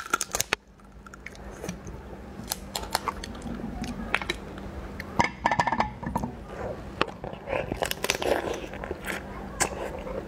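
Raw mantis shrimp shell cracking and snapping as it is pulled apart by hand and bitten, with chewing: many sharp clicks and crunches scattered throughout.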